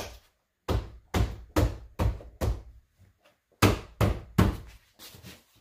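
Plastic door sill trim on a Ford Explorer being knocked down by hand so its tabs snap into their clips: two runs of knocks, about two a second, the last few weaker.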